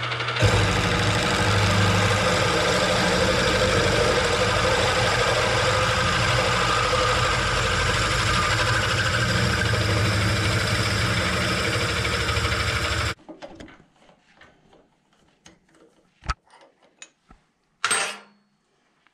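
Benchtop mill-drill running, its bit drilling a balance hole into a two-stroke crank's steel counterweight; the steady motor hum and cutting noise stop suddenly about two-thirds of the way through, followed by a few faint clicks.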